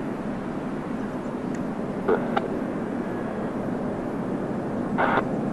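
Steady jet airliner engine noise at an airport, with two brief blips, about two seconds in and near the end.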